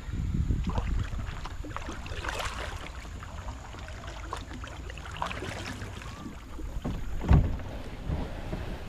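Sounds of a kayak on the water: a few short splashing strokes and one sharp knock about seven seconds in, over wind rumbling on the microphone.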